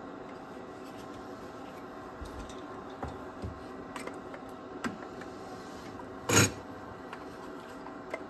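Bench work on the cassette deck's circuit boards: a few small clicks and taps, then one loud, brief scrape about six seconds in.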